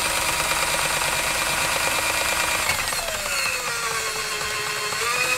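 Ryobi One+ 18V cordless drain auger running, its drum turning as the cable is reeled back in. The motor's whine falls in pitch about three seconds in as the variable-speed trigger is eased off, then rises again near the end.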